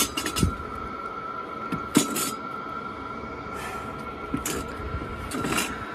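Sharp knocks and clinks of hand tools and fittings being handled on a boat's deck, the loudest about two seconds in. Under them is a steady high whine from running diesel heaters.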